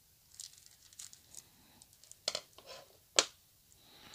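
Thin plastic bag crinkling as it is cut and pulled open with scissors. There are two sharp clicks about two and three seconds in, and a soft rustle near the end.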